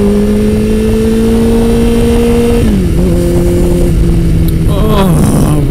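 Motorcycle engine running at road speed, its note rising slowly and then dropping in pitch a little under three seconds in, under a loud wind whoosh on the helmet microphone.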